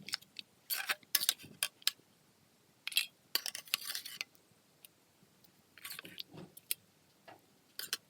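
Irregular light clicks and clinks with short scraping sounds, coming in small clusters with quiet gaps between.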